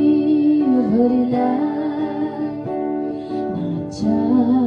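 A singer holding long sung notes with a slight waver, gliding between pitches, over guitar accompaniment.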